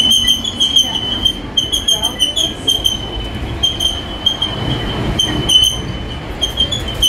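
Disneyland Railroad train rolling along the track, its wheels squealing: a high screech held at one pitch that cuts in and out every fraction of a second, over the low rumble of the running cars.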